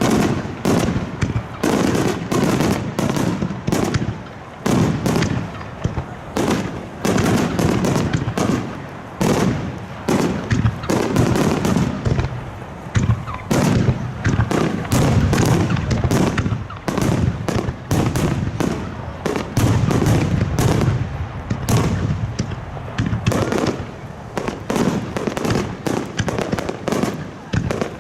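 Aerial firework shells bursting in a dense, continuous barrage: many booms and crackling reports overlapping with no pause.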